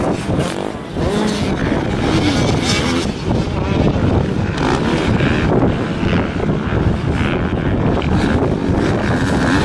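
Motocross bikes running around a dirt track, their engines revving up and down in pitch as the riders work the throttle through the corners.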